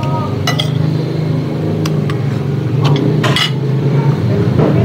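Metal spoons clinking against plates and a glass bowl during a meal, several sharp clinks including a quick cluster a little past three seconds in, over a steady low hum.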